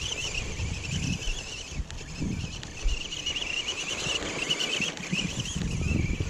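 Team Losi JRX-T RC truck's brushed electric motor whining at a distance, its pitch wavering up and down with the throttle, over a low uneven rumble.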